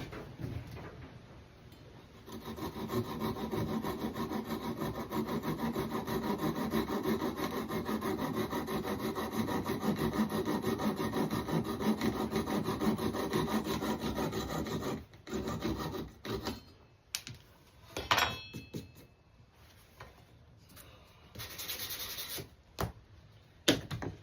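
Steady rasping on wood, a fast, even rub held for about thirteen seconds, then stopping; after it come a few scattered knocks and short scrapes of the wooden pieces being handled.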